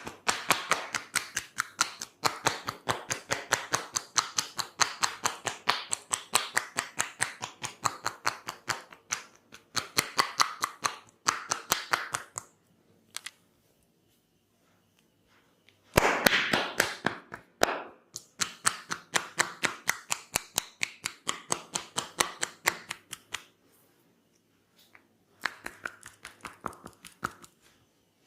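Tok Sen massage: a wooden mallet tapping a wooden wedge held against the body, in quick steady strikes of about four a second. The runs of tapping stop for about three seconds a little past the middle and pause again briefly near the end.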